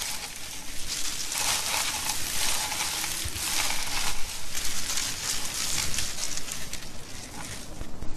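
Dense crackling and rustling of leaves and twigs in a forest canopy, with many small snaps and ticks.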